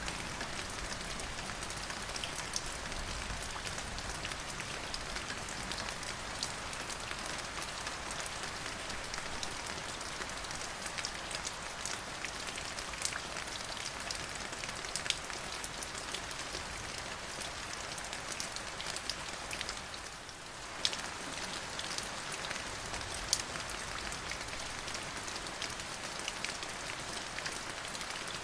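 Steady rain falling on a surface, a constant hiss with many individual drops ticking sharply through it. It thins briefly about 20 seconds in.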